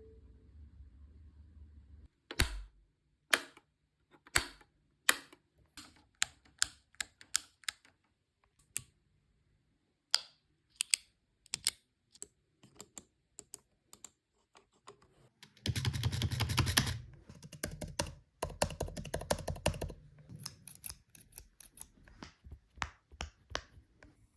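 A series of sharp mechanical clicks, irregularly spaced, with two fast runs of rapid clicking about two-thirds of the way through.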